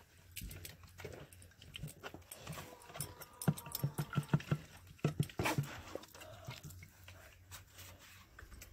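A farm dog's sounds among scattered clicks and low knocks, with a short thin tone about three seconds in.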